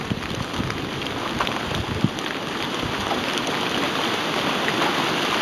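Hurricane wind and rain: a steady rushing hiss that builds slowly, with scattered drops striking.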